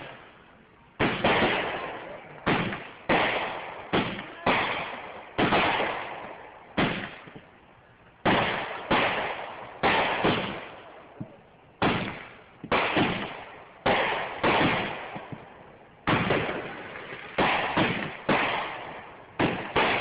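Fireworks going off: an irregular string of sharp bangs, roughly one a second and sometimes two in quick succession, each fading away in a trailing echo.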